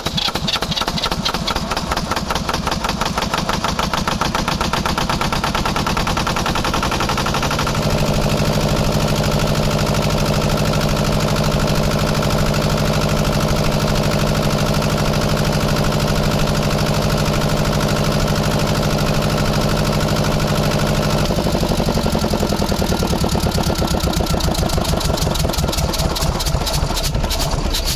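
Kirloskar HA-294 two-cylinder diesel generator-set engine running just after a tappet adjustment. It starts at a lower speed with rapid, distinct firing pulses, picks up to a steady higher speed about eight seconds in, then drops back to the slower pulsing rhythm about seven seconds before the end.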